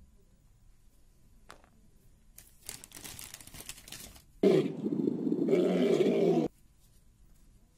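Lion roaring: one loud roar of about two seconds that cuts off abruptly, preceded by a couple of seconds of faint crackling rustle.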